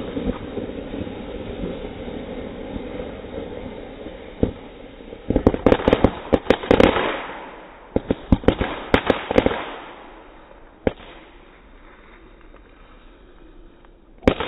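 Crackling firework going off: a fading fizz, then sharp crackling pops in two quick flurries about five and eight seconds in, followed by a few last single pops.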